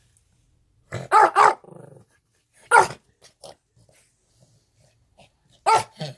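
Small Yorkshire terrier barking: a quick pair of barks about a second in with a brief low growl after them, another bark near three seconds, and a pair near the end.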